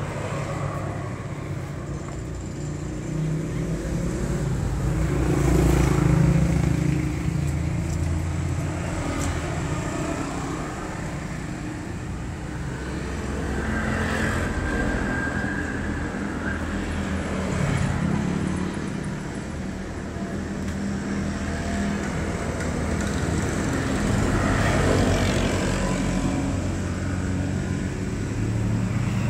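Road traffic: a steady motor-vehicle rumble that swells and fades several times as vehicles pass, loudest about six seconds in.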